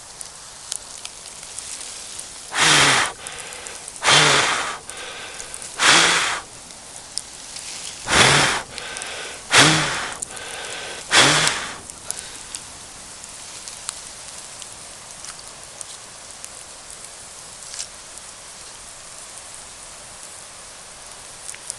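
Campfire crackling, with scattered pops, broken by six loud rushing bursts about a second and a half apart in the first half.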